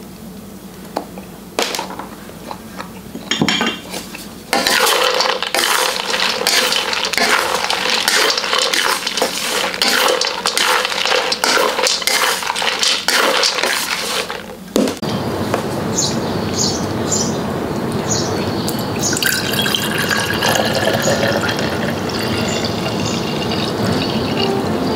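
Liquid being poured and stirred in kitchenware, with dense clinks of utensils against dishes. About fifteen seconds in this gives way to a steady hiss with a few short, high chirps.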